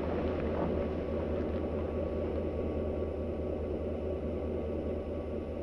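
Steady low mechanical rumble with a constant low hum beneath it, easing off slightly near the end.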